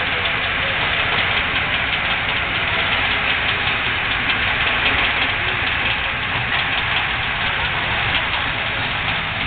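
An engine running steadily, with a dense, rapid clatter over a low rumble.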